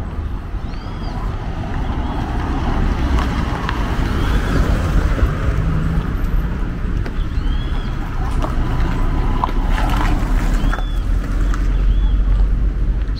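Outdoor street ambience: a steady low rumble, a little stronger in the second half, with a bird giving short arched chirps every few seconds.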